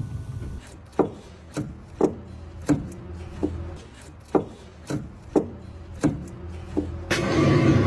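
A series of about ten sharp knocks, unevenly spaced roughly every half-second to second, over a low steady hum. About seven seconds in, a louder, steady, rushing noise sets in.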